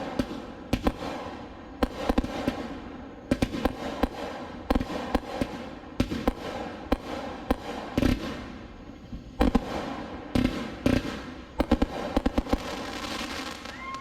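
Two 200-gram, 15-shot consumer firework cakes firing together: a quick, irregular string of launch thumps and aerial breaks over steady crackling, growing denser near the end.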